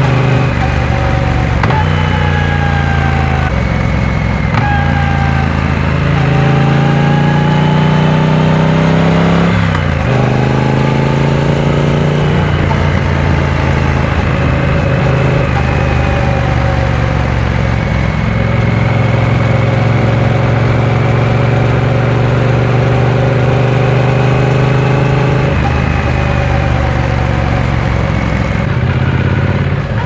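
Triumph Speed Twin 900's parallel-twin engine running under way, heard from the rider's seat. The revs climb over several seconds and drop sharply about ten seconds in, as at a gear change. The engine then holds a fairly steady cruising pitch, with brief breaks early on and another change near the end.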